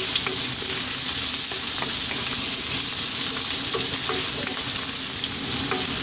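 Sliced onion, carrots, ginger, garlic and chilli sizzling steadily in hot oil in a wok on high heat. A wooden spatula stirs them constantly, with short scrapes and taps against the pan about every half second.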